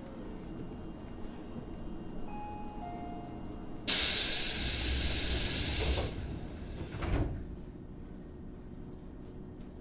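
Inside a Tobu 8000-series train with its steady low hum, a sudden loud burst of compressed-air hiss starts about four seconds in and lasts about two seconds, followed by two thuds as the sliding doors work.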